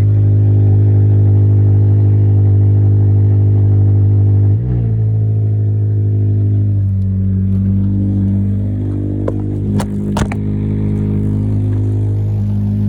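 Honda K24 four-cylinder engine idling steadily on freshly replaced spark plugs and ignition coils, with a brief wobble in pitch about four and a half seconds in and a few sharp clicks near the end.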